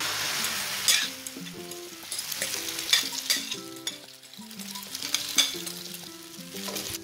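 Beaten egg with chopped onion and green chilli poured into hot oil in a non-stick frying pan, sizzling hardest as it first hits and then frying steadily. A metal spoon scrapes and taps against the pan several times as the omelette is spread.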